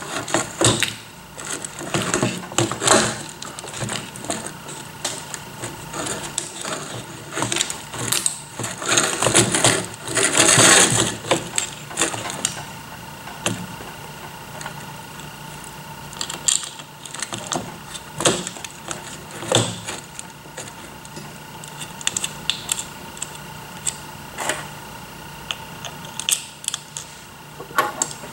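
Hands fitting geared-motor wheels to a plastic robot base plate: irregular clicks and light knocks of plastic and metal parts, with a longer stretch of scraping and rubbing about ten seconds in.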